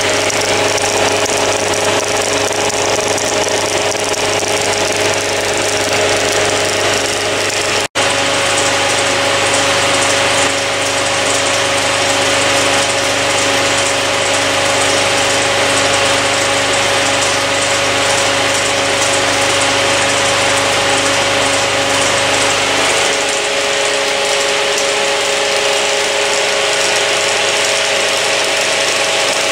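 Bauer P5 16mm film projector and the motor-driven Nipkow scanning disk of a mechanical telecine running steadily: a continuous whirring machine noise with a steady mid-pitched tone and a low hum. The sound drops out for an instant about eight seconds in, and the low hum falls away a little after twenty-three seconds.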